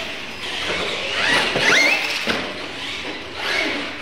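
RC monster trucks racing across a concrete floor: motors whining and tyres squealing, with quick rising whines a little over a second in.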